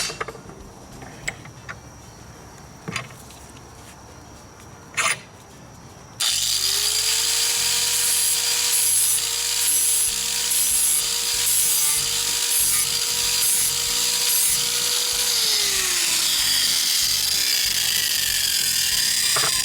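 A high-speed electric tool sharpening a steel lawn mower blade. After a few light clicks it switches on about six seconds in, rising to speed with a steady whine over a loud grinding noise, then winds down with a falling whine near the end.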